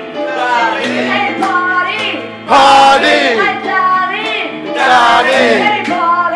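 A woman singing a soul song into a handheld microphone, her voice sliding and wavering between notes over steady held backing notes. The singing gets louder about two and a half seconds in.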